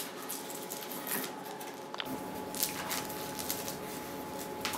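Soft scraping and light knocks of canvases and cardboard sheets being leafed through in a stack, a few short faint clicks spread across a quiet background.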